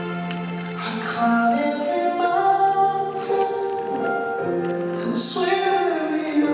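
A slow love song playing: a singer holds long notes over instrumental backing.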